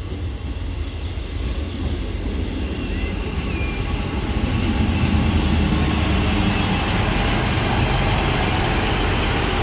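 A passing train's rumble, building over the first five seconds and then holding steady and loud.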